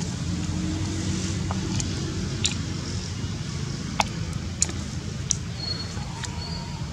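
Steady low motor rumble, like a vehicle engine running, with a few sharp clicks from about two and a half seconds in and a brief thin whistle near the end.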